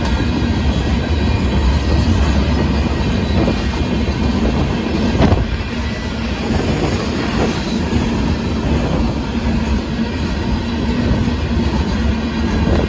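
Union Pacific freight train of hopper cars rolling past at close range: a steady rumble of wheels clacking over the rails, with one sharp clank about five seconds in.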